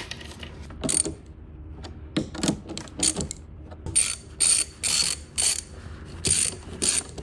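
Nuts being fitted onto the terminal studs of a Ford C-Max battery module, about ten short metallic clicks at uneven intervals, thickest in the second half.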